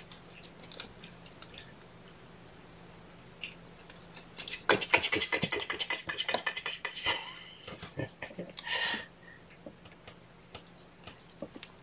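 Scratching and rustling on a fabric blanket as a kitten is handled and moves about, a dense run of scratchy clicks from about four and a half to nine seconds in, with only scattered light ticks before and after. A faint steady hum sits underneath.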